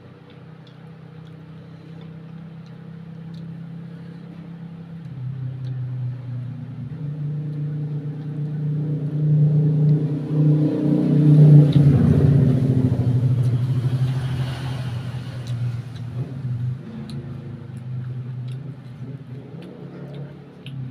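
A motor vehicle engine passing by, growing louder to a peak about twelve seconds in and then fading away.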